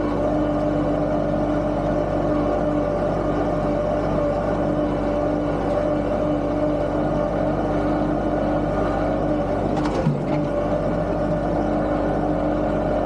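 Tractor engine running steadily at constant speed, with a brief knock about ten seconds in.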